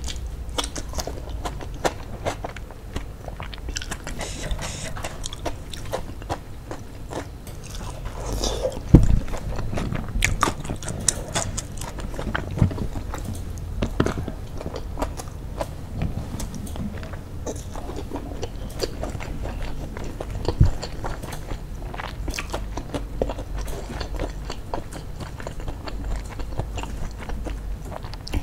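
Close-miked chewing and biting of sauce-coated fried chicken, rice and fresh tomato eaten by hand, with crunches and many small mouth clicks. Two heavier thumps stand out, about nine seconds in and about twenty seconds in.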